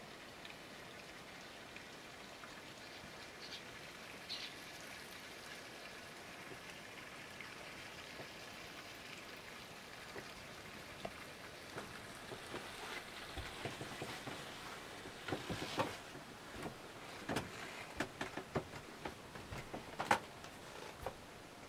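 Faint steady hiss, then from about halfway a run of irregular light knocks and clicks, loudest near the end: footsteps on the caravan floor and handling noise as someone moves through the small caravan.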